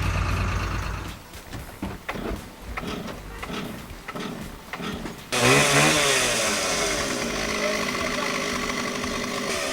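A low engine rumble fades about a second in, followed by a quieter stretch of scattered knocks. About halfway a chainsaw starts loud and abruptly, running and revving up and down.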